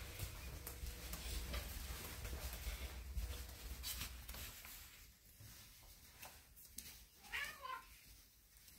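Domestic cat, a tortoiseshell tabby, giving one short meow about three-quarters of the way in. Before it come faint rustling and small clicks.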